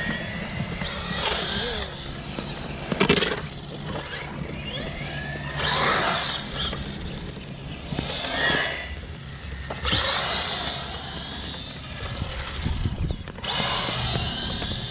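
Electric motors of 1/10-scale RC cars whining in repeated bursts, rising and falling as the cars accelerate and back off on asphalt. There is a sharp click about three seconds in.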